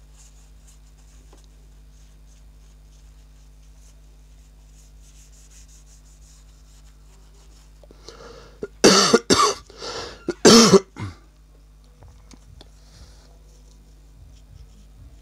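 A person coughing, several loud close coughs in a short fit lasting about two seconds, starting about nine seconds in. Before it there is a faint rustle of a tissue wiping a phone's display glass, over a low steady hum.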